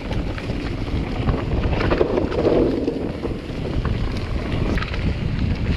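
Wind rushing over a chest-mounted GoPro's microphone as a mountain bike rides down a rough trail: a steady low rumble with scattered clicks and rattles from the bike and tyres.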